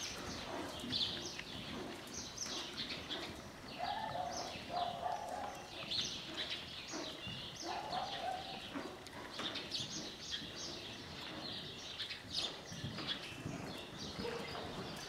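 Small birds chirping over and over, with the soft hoofbeats of a horse working on sandy arena footing beneath them.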